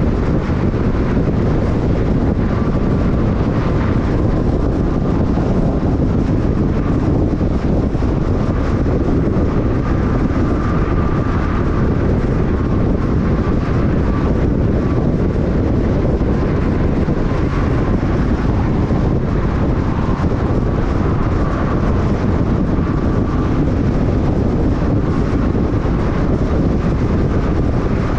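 Steady road noise from a car driving at freeway speed: tyres running on a concrete freeway, with a faint high whine above the rumble.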